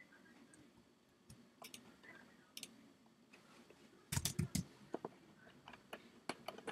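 Scattered sharp clicks of a computer mouse, with a louder cluster of clicks and knocks about four seconds in.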